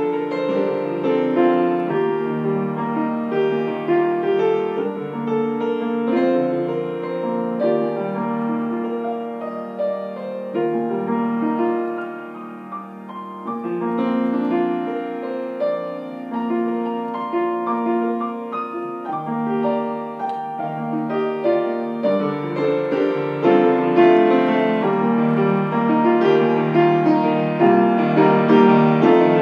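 Grand piano played solo in a free improvisation, many notes held and ringing together. It softens briefly about halfway through and grows louder toward the end.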